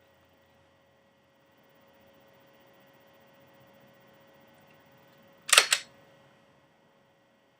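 Two quick, sharp mechanical clicks close together, a little past halfway, over a faint steady hum.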